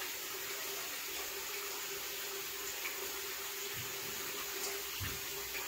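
Bathroom tap running steadily into a sink, an even hiss of water with a faint steady hum under it. Two soft knocks come near the end.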